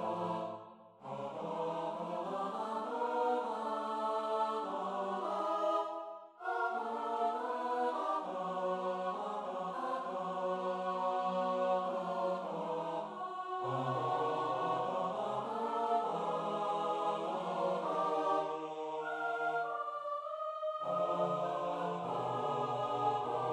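Four-part a cappella choir music: voices held in chords that move step by step, with short breaks about a second in and about six seconds in.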